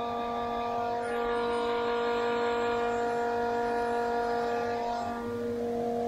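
Farm machinery running steadily, its engine hum carrying a steady high whine.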